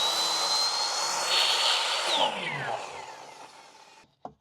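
Miter saw running at full speed with a steady high whine, its blade skimming a thin sliver off the end of a board about a second and a half in. The trigger is then released, and the motor winds down with a falling whine that fades out.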